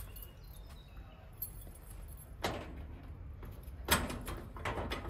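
Keys jangling and a key being worked into the lock of a sheet-metal clothing-donation container's door, with short metallic rattles about two and a half seconds in and again near the end.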